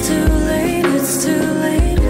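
Background pop music: held chords over a slow drum beat, with no singing in this stretch.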